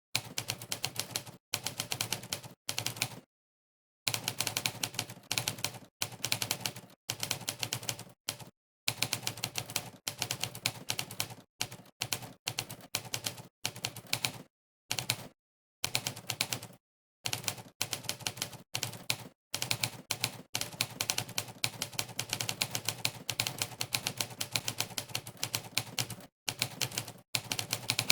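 Monkeytype's 'typewriter' keypress sound effect: a sampled typewriter key strike played for each keystroke, in fast runs of many clicks a second broken by short silent pauses.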